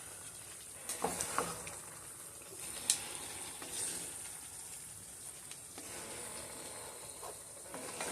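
Cubed beef sizzling in a pan in its own juices as it is stirred. A utensil clicks and scrapes against the pan a few times, mostly in the first three seconds.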